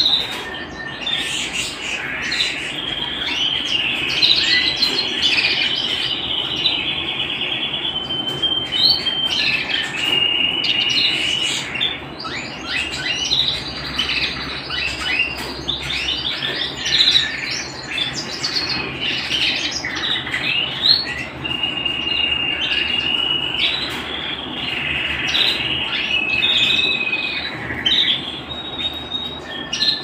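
Domestic canary singing a long, continuous song of rapid trills and rolls alternating with held, steady whistled notes.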